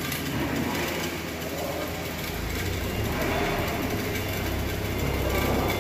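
A machine running: an even hiss with a steady low drone that grows stronger about two seconds in.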